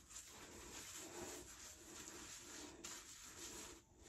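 Faint, soft squishing and rubbing of hands working shampoo through wet hair, in near silence.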